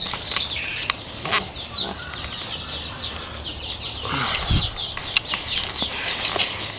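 A pen of chickens clucking and chirping, many short quick calls overlapping, with a few sharp clicks and a low thump about four and a half seconds in.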